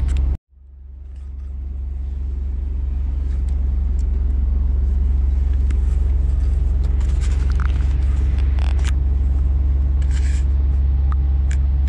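Steady low drone of a Scania truck's diesel engine and road noise, heard inside the cab while driving slowly on snow. Near the start the sound drops out briefly, then fades back in over a couple of seconds.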